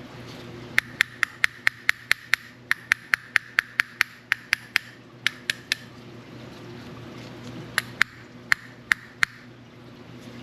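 Runs of sharp, ringing taps, about four a second, as a tool is knocked against a Penn Battle II 3000 spinning reel's rotor to free it where salt-water corrosion has seized it. The taps come in a long run, then a short pause and a few more near the end.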